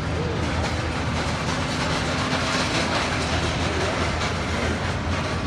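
Steady mechanical drone with a constant low hum from a parked airliner and its ground equipment running on the apron.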